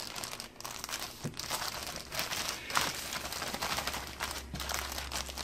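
Clear plastic zip-top bag crinkling and rustling irregularly as a whole fish is squeezed and turned inside it to coat it in cornmeal.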